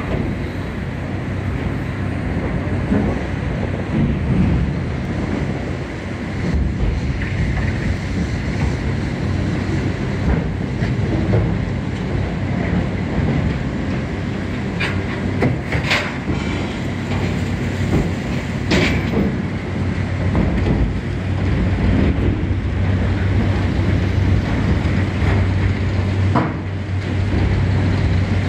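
A mobile crane and its hydraulic system running steadily with a low hum while powering a rotary brush machine for cleaning gondola wagons. A few sharp metal clanks sound over it, the loudest about sixteen and nineteen seconds in. The hum grows stronger from about twenty seconds in.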